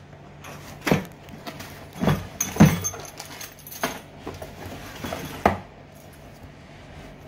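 Cardboard boxes being handled and opened by hand: a handful of knocks and thumps of cardboard, with a crinkling of the plastic wrap around a motorcycle exhaust muffler.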